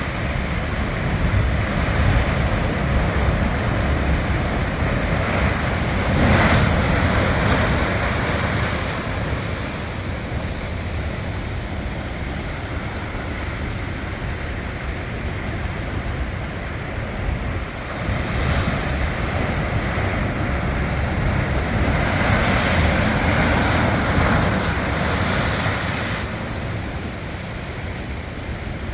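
Pacific Ocean surf breaking and rushing in a continuous wash, swelling as a breaker crashes about six seconds in and again later on, with wind on the microphone.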